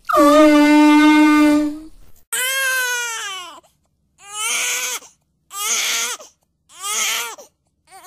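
An air horn blasts one steady, loud note for about two seconds. Crying follows in a series of wails that fall in pitch.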